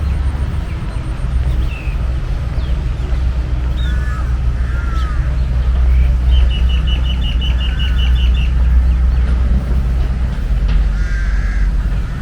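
Birds calling: scattered short chirps and curved calls, then in the middle a rapid run of about a dozen high, evenly spaced notes lasting around two seconds. A steady low rumble, typical of distant city traffic, runs underneath.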